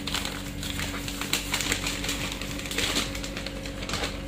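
White paper takeaway bag being unwrapped and opened by hand, crinkling and rustling in quick, irregular crackles.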